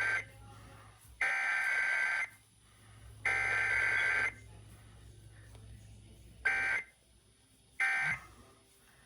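Emergency Alert System SAME data bursts on a required weekly test: the tail of the first header burst, then two more header bursts about a second long, each a second apart. After a pause of about two seconds come two short end-of-message bursts.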